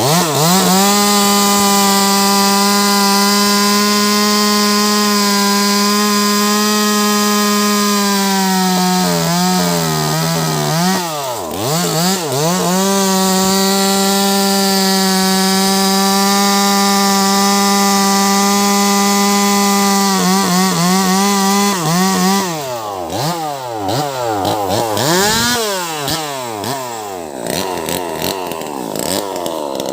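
Wagner 580 two-stroke chainsaw with a 16-inch bar cutting lengthwise through a large log, held at steady high revs for long stretches. The revs sag and recover about ten seconds in, then rise and fall repeatedly and less evenly through the last third.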